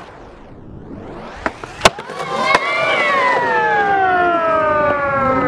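Skateboard landing on concrete: two sharp clacks about a second and a half and two seconds in, the second the louder, then the wheels rolling. From a little after two seconds in, a long high tone with overtones sounds over the rolling and falls slowly in pitch.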